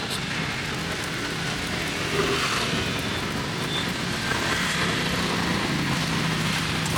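Mini savory pancakes frying in a hot pan, a steady sizzling hiss, with a low hum of street traffic underneath.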